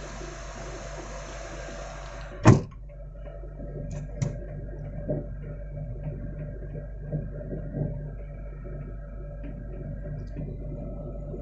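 Mitsubishi 4G63 engine idling steadily but high, around 1,500 rpm. A steady hiss stops with one loud bang about two and a half seconds in, like a door or hood being shut, and a couple of clicks follow.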